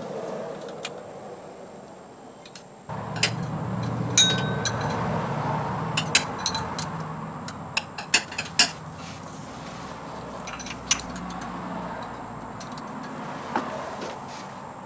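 Wrench and bolts clinking and ticking against the steel of a motor mount bracket as it is fitted into the engine bay, in irregular sharp metallic clicks, a few ringing briefly. A steady low hum comes in about three seconds in.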